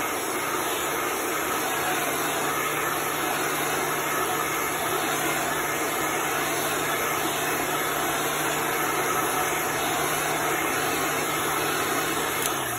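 Hand-held electric hot-air blower running steadily, a constant rush of air over a low motor hum, drying freshly applied chalk paste; it switches off at the very end.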